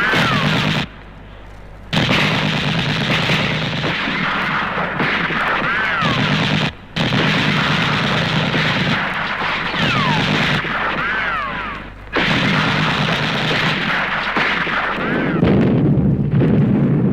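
Battle sound effects played from a 7-inch vinyl record: continuous gunfire and explosions, with whistles falling in pitch like incoming shells. The din drops out briefly about a second in and again near the middle.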